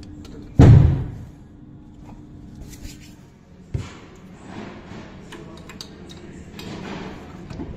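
A heavy metal differential housing being handled: one loud thud about half a second in, then a sharp knock and softer scraping and knocking as it is lifted and fitted into place.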